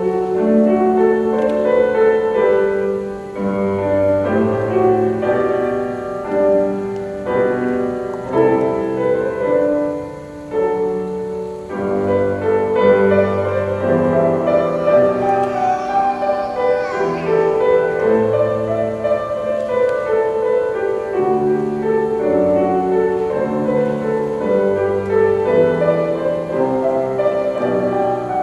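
Instrumental ceremony music led by piano, playing held chords under a moving melody.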